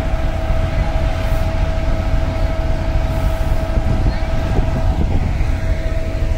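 Pakistan Railways GEU40 diesel-electric locomotive running as it draws slowly into the station: a steady engine drone with a constant whine over a heavy low rumble.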